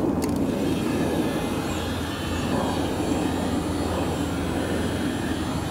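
Electric heat gun running, a steady whir of its fan with rushing hot air, after a brief click just after the start. It is aimed at a stiff wheel hub cap on a riding mower to soften it.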